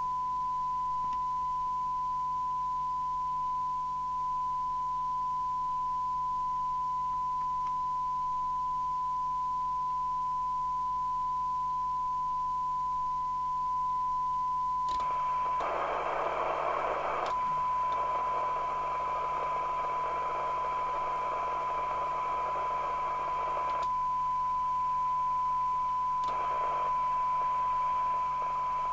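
A handheld CB radio's receiver plays a steady 1 kHz test tone from its speaker, the modulation of the signal generator's test signal used for a SINAD reading. About fifteen seconds in, hiss rises up around the tone with a faint click, drops away again near 24 s, and comes back about 26 s in: the receiver's own noise showing as the test signal is weakened toward its sensitivity limit.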